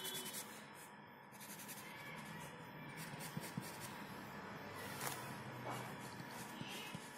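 Faint scratching of an oil pastel stick rubbed across drawing paper, with a light tap about five seconds in.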